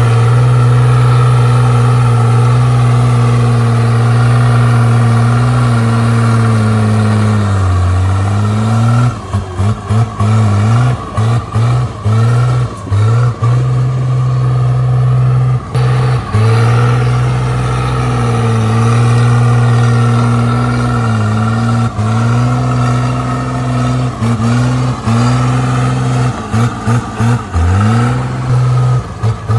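Komatsu D37P bulldozer's diesel engine running hard, its pitch sagging under load about eight seconds in and dipping briefly again and again in the middle and near the end.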